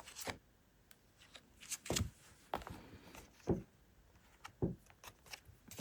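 Tarot cards being handled and laid out: several short, soft slaps and rustles of cards.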